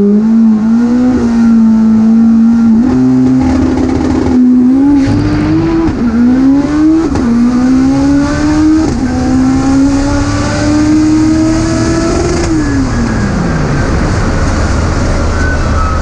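Race car engine accelerating hard at high revs, its pitch climbing and dropping sharply at each gear change about four, five, six and seven seconds in. A long pull in the last gear follows, then the revs fall away about twelve and a half seconds in as the throttle is let off.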